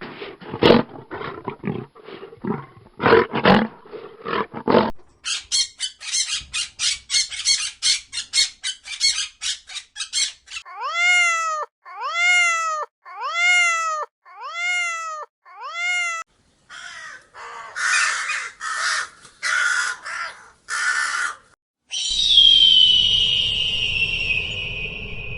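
A run of different animal calls, one after another: about five seconds of repeated short harsh calls, then a fast rattle of pulses, then six separate rising-and-falling calls, then a few rough bursts, and finally a long call that falls in pitch.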